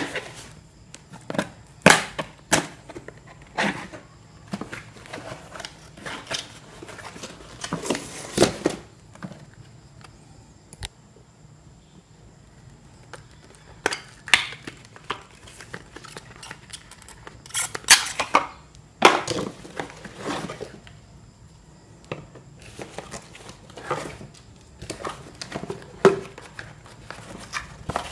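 Cardboard box and plastic packaging being handled while items are taken out: irregular rustling and crinkling with scattered sharp clicks and knocks.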